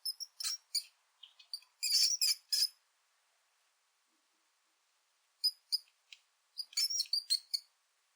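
Mouse squeaks: short, very high-pitched chirps in quick clusters, a run in the first few seconds and another from about five and a half seconds in, with a pause between.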